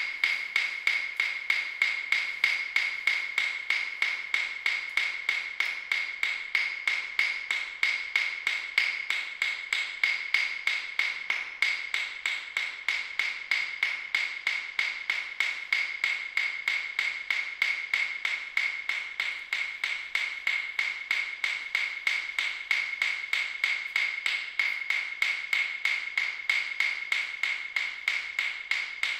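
Steady, even ticking, about three to four ticks a second, each tick with a short bright ring.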